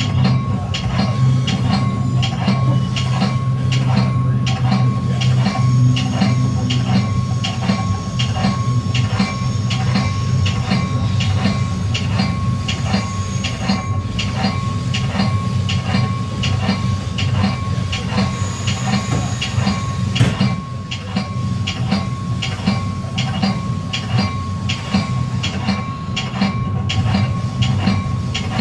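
Metra bilevel commuter cab car rolling at low speed over jointed track and switches, heard from inside the car: a strong low rumble with an even run of wheel clicks, two or three a second, and a steady high tone. A brief high wheel squeal comes in a little past two-thirds through.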